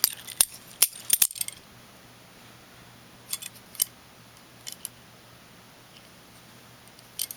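Sharp metallic clicks and clinks of a balisong (butterfly knife, a Benchmade 42 replica) being handled: a quick run of clicks in the first second and a half, then a few scattered single clinks.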